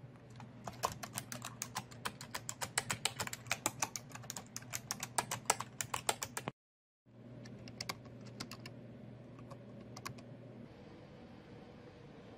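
Rapid typing on a computer keyboard, a quick run of key clicks lasting about six seconds. After a short gap of total silence come a few scattered keystrokes over a faint steady hum, which stops about ten seconds in.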